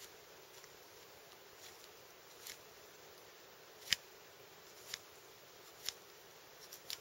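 Hands working kindling for a small campfire: a few short, sharp snaps or scrapes about a second apart, the loudest about four seconds in, over a faint steady hiss.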